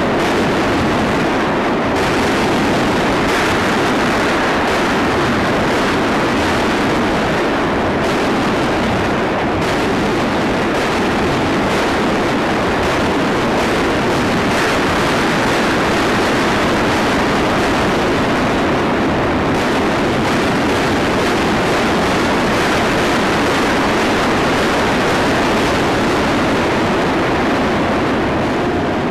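Massed artillery barrage: hundreds of guns firing at once, their shots blending into one dense, unbroken rumble at steady loudness.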